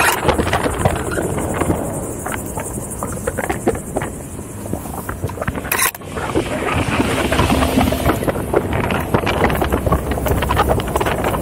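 Wind buffeting the microphone over the rumble of a Onewheel's single wheel running over a dirt trail at about 13–14 mph. Many small clicks and knocks come from the rough ground, with one sharp knock about six seconds in.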